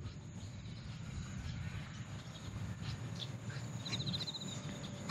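Crickets calling: a steady high-pitched trill throughout, with a short, rapidly pulsed chirp from another insect about four seconds in. A low, uneven rumble runs underneath.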